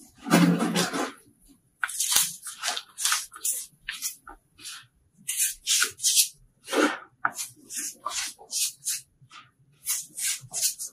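Hands pressing into and crumbling soft chunks of dry rangoli powder: a string of short, soft crunching scrapes, about two a second. The first one, right at the start, is longer and fuller.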